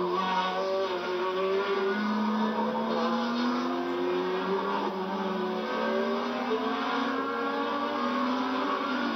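Formula One race car engines running at speed, several engine notes overlapping, their pitches slowly rising and falling.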